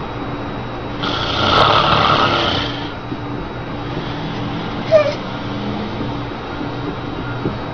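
A person snoring: one long, loud snore of nearly two seconds starts about a second in. A brief sharp sound follows about five seconds in. A steady low hum runs underneath.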